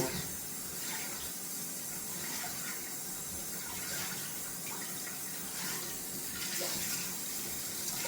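Tap water running steadily into a sink while a badger shaving brush is rinsed under it, washing leftover soap out of the knot.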